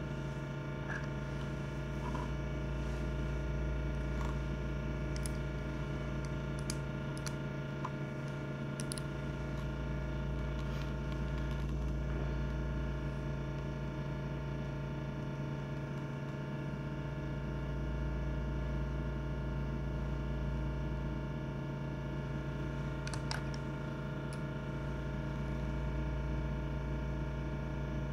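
Steady background hum with many pitched overtones, with a few light clicks and taps scattered through it as plastic-and-metal Clubmaster sunglasses frames are handled.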